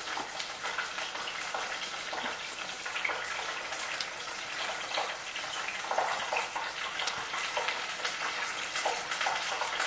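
Fried chicken wings and rice being eaten: scattered small crunches and clicks over a steady hiss.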